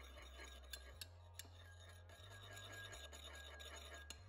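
Faint stirring of a metal spoon in a ceramic bowl of sweet chilli dipping sauce, with a few light clicks of the spoon against the bowl.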